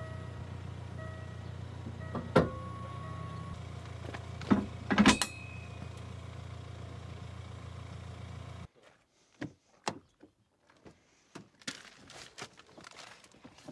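Heavy steel ball-type tow coupling being handled and latched onto the car's hitch: a few sharp metal clanks, the loudest, with a ringing tail, about five seconds in, over background music. About nine seconds in the music stops and only light clicks and knocks remain.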